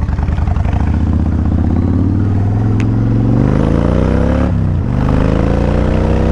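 A Kawasaki Vulcan 1500 V-twin motorcycle engine accelerating through the gears. The engine note rises steadily, drops at a gear change about four and a half seconds in, then rises again up to a second shift at the end.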